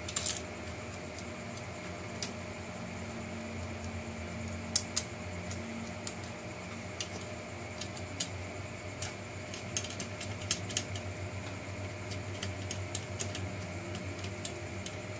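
Light, irregular clicks and taps of hard plastic parts as MN D90 RC truck inner fender liners are handled and pressed onto the chassis frame, about a dozen over the stretch. A steady hum runs underneath.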